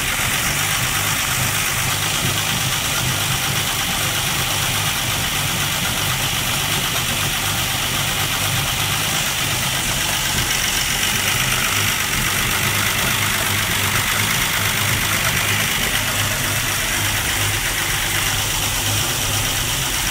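Armstrong Siddeley Sapphire 346 straight-six engine idling steadily and evenly, freshly filled with coolant so it can keep running.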